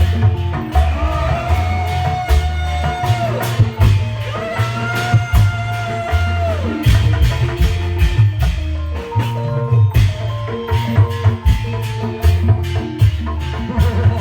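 Live Reog folk-troupe music: drums beat a dense, heavy low rhythm with sharp strikes on top, under a melody instrument that holds long notes and slides down at the end of each phrase.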